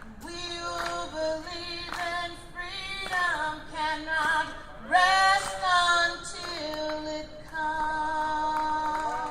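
A woman singing a slow melody in long, drawn-out notes, ending on a long held note.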